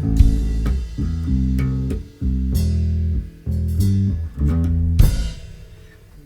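A rock band's song ending: bass guitar and guitar notes, broken by short stops, with drum kit hits and cymbal crashes. A final crash about five seconds in rings out and the music fades away.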